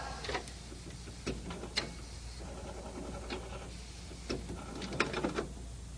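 HP DesignJet T120 large-format inkjet printer working through a print job: several sharp mechanical clicks and two short motor whirs as its mechanism moves.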